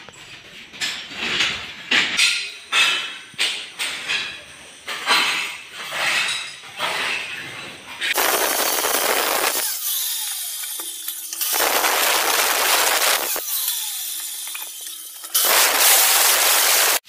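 Irregular knocks and clinks of hard tile pieces for the first half. Then a handheld power cutter cutting marble tile in three long, loud stretches, with two short pauses where the motor is heard running free.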